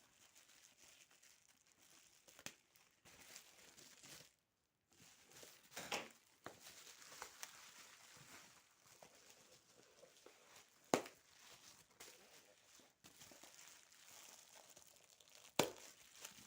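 Faint crinkling and rustling of plastic bubble wrap being handled and cut open, with a few sharp clicks, the loudest two near the middle and near the end.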